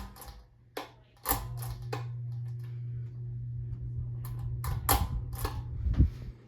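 Several sharp clicks, then a steady low electric hum from a Home Decorators Collection Ellard ceiling fan that starts about a second in and cuts off near the end, with more clicks and a knock over the hum.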